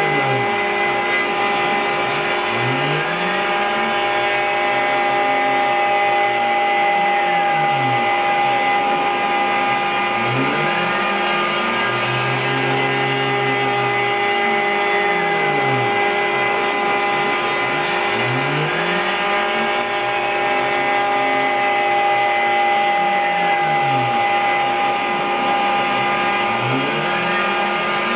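CNC router cutting with its router spindle running at a steady high whine and the dust collector drawing through the hose. Underneath, the stepper motors' pitch sweeps up and down in a cycle that repeats every eight seconds or so as the machine follows a circular path.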